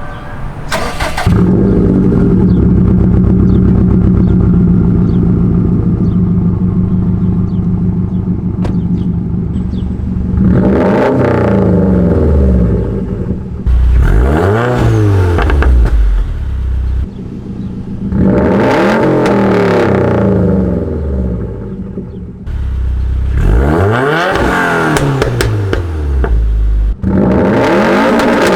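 Turbocharged Subaru flat-four engine exhaust: the engine starts about a second in and idles steadily, then is revved five times, each rev climbing and falling back.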